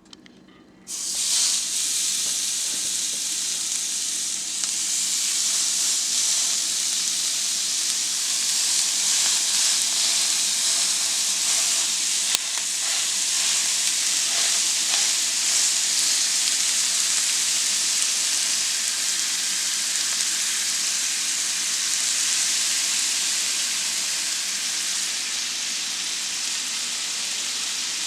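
Seasoned ground beef for cheeseburgers frying in a hot pan. The sizzle starts suddenly about a second in, as the meat goes into the pan, then holds as a steady frying hiss.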